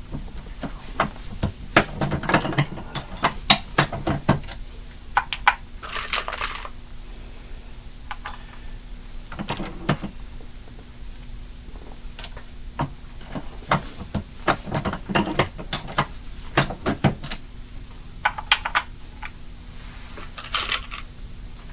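Irregular metallic clicks and clinks of brass cartridge cases and bullets being handled and run through a reloading press while seating and crimping 300 Blackout rounds, some clicks coming in quick clusters.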